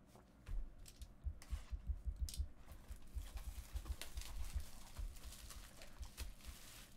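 Trading card packs and cards being handled: irregular crinkling, rustling and clicking of wrappers and cards, with soft knocks on the table.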